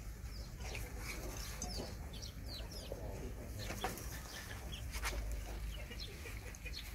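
A mother dog and two puppies eating together from a steel bowl, with scattered short clicks of chewing and lapping. Many short high bird chirps repeat throughout, over a low steady rumble.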